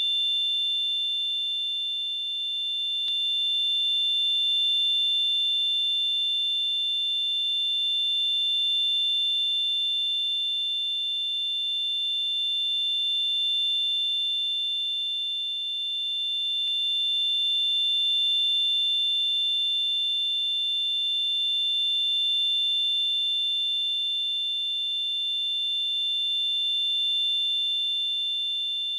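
Simulated tinnitus: a steady high-pitched ringing of two close pure tones over a faint hiss, slowly swelling and fading every few seconds.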